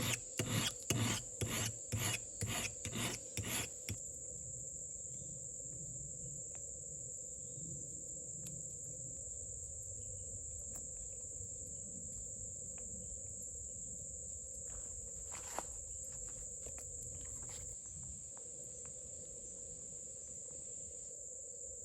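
About a dozen rhythmic rasping strokes, roughly three a second, of something being filed or rubbed by hand, stopping about four seconds in. After that a steady high drone of crickets and other insects continues, with a few faint knocks.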